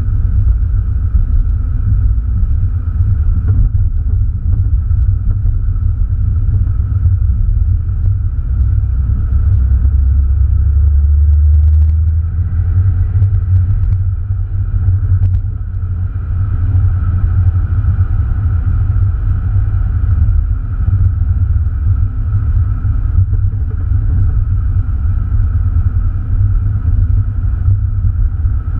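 Opel Astra Bertone Turbo's turbocharged 2.0-litre four-cylinder engine and road noise heard inside the cabin while driving, a steady low rumble. It swells a little about nine seconds in and eases off about twelve seconds in.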